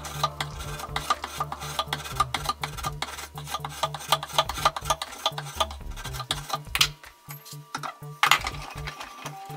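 Hand file rasping in repeated strokes while a wooden hatchet handle is shaped to fit the head, over background music with a steady beat.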